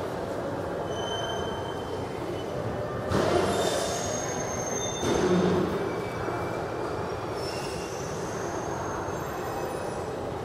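Subway train running in the station, its steel wheels squealing on the rails in thin high tones over a steady rumble, with two louder swells about three and five seconds in.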